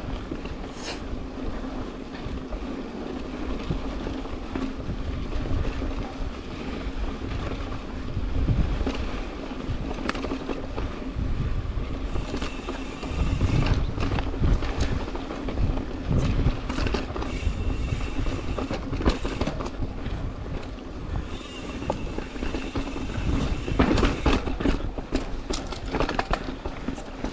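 Mountain bike being ridden over a rough rocky trail: tyre rumble, knocks and rattles from the bike, with wind on the microphone. A high buzz comes and goes several times, the Industry Nine Hydra rear hub buzzing as the bike coasts.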